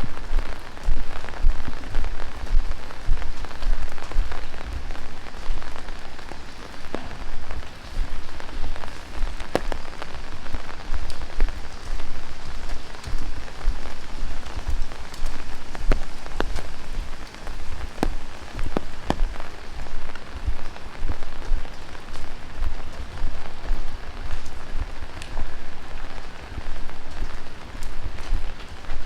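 Heavy rain pattering on surfaces, with many scattered sharp drips and a low, uneven rumble underneath.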